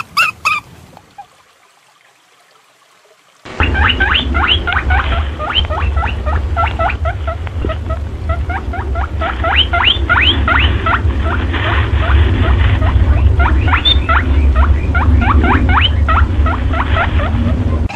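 A short gap of near silence, then about three and a half seconds in a dense run of short, rising, high squeaking chirps starts, many a second, over a steady low rumble. It is a trapper's lure recording offered as a perentie calling sound.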